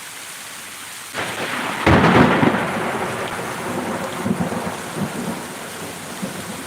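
Steady rain, then about a second in a close lightning strike's thunder breaks in suddenly. It cracks loudest about two seconds in and rumbles on, slowly fading.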